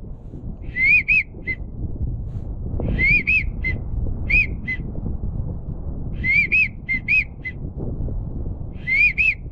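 A duck whistle call blown in short repeated sequences, the kind used to call pintails: two rising-and-falling whistles and then a short peep, repeated about every two to three seconds. Low wind rumble runs underneath.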